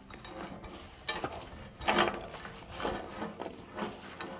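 Steel hardware clinking and knocking as a cutting edge is fitted and bolted onto a scraper blade: a few separate metal knocks, the loudest about two seconds in, one with a short metallic ring.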